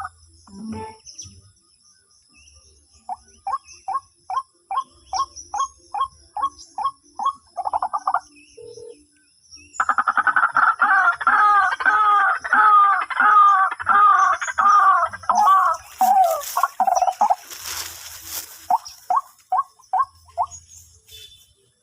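White-breasted waterhen calling: a series of repeated harsh notes about two a second, breaking into a fast, dense run of calls for several seconds in the middle, then slowing to single notes again. A steady thin high whine runs under it, and a short burst of rustling noise comes near the end of the fast run.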